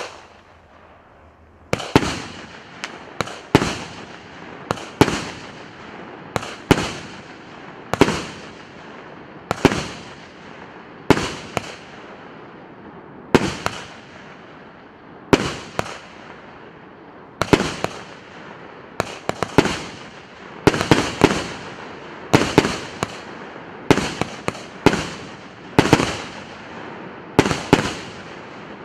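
Firework battery (cake), the PC861 'Fabergé', firing shot after shot: after a short hiss, sharp bangs begin about two seconds in and come roughly once a second, each trailing off in a fading crackle.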